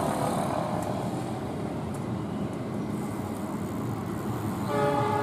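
Diesel locomotive approaching with a steady low rumble, then sounding its horn, a held tone, near the end.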